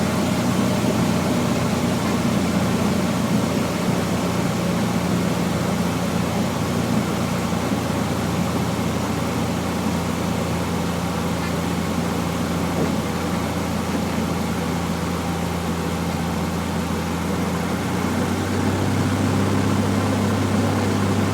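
Cessna 172F's six-cylinder Continental O-300 engine and propeller droning steadily at reduced power, about 1,800 RPM for slow flight, heard from inside the cabin. The low drone grows a little stronger about eighteen seconds in.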